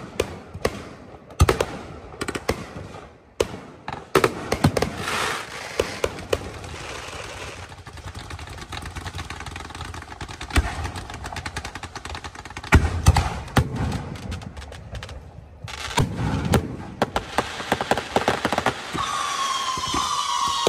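Aerial fireworks going off: a rapid run of sharp bangs and crackling shell bursts, with high whistling tones from whistle shells coming in near the end.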